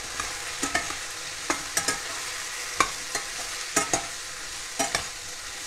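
Steel spatula scraping and clinking against a stainless steel kadhai as cubed potato and brinjal are stirred, with irregular sharp knocks over a steady sizzle of the vegetables frying in oil.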